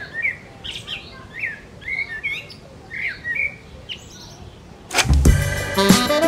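Birds calling in short, repeated chirps. About five seconds in, music with a steady beat starts suddenly and takes over as the loudest sound.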